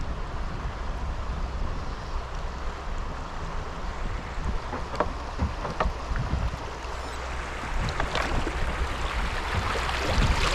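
Shallow creek water rushing past a kayak over a steady low rumble, with a few sharp knocks about halfway through and more near the end.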